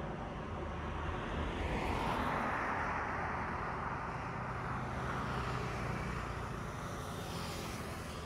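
Steady engine drone heard outdoors, with a rushing noise that swells from about two seconds in and eases off after about five seconds.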